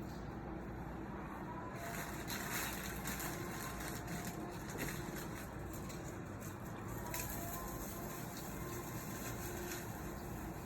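Ritz crackers being crumbled by hand, giving irregular crackly bursts over a steady background hum.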